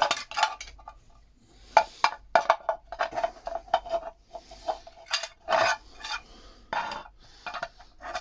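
Metal clinking, knocking and scraping as a lead-acid battery charger's metal casing and parts are worked apart by hand: a quick, uneven run of sharp knocks, many with a short ring.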